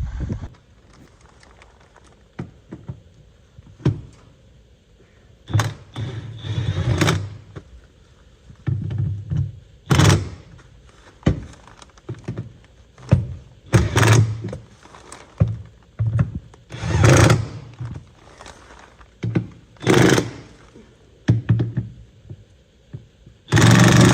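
A series of irregular thunks and knocks, a dozen or so spaced a second or more apart, some brief and some lasting about half a second, from work on the skid steer.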